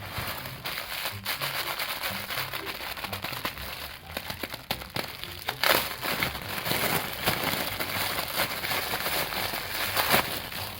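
Plastic packaging crinkling and crackling as it is handled and opened during a toy unboxing, with a couple of louder crackles about halfway and near the end.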